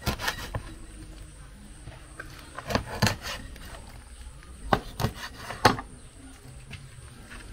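Kitchen clatter during cooking preparation: a handful of sharp, irregular knocks of utensils and cookware, in small clusters near the start, about three seconds in and about five seconds in.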